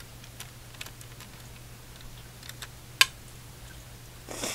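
Plastic Lego bricks of a handheld model jet clicking and rattling lightly as it is lifted and turned over in the hand, with one sharp click about three seconds in and a brief rustle near the end, over a steady low hum.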